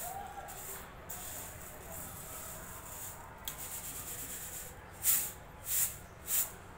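Dry lentils rustling against a steel plate as they are worked through by hand and shaken to clean them, with three short, louder swishes near the end as the plate is tossed.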